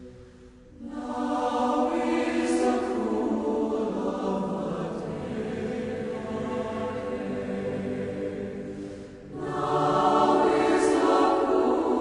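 Slow choral music: voices holding long chords, swelling in about a second in and again near the end.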